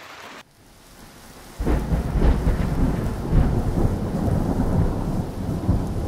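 Heavy rain: a loud, steady rumbling hiss with a strong low end that comes in suddenly about a second and a half in, after a brief near-quiet moment.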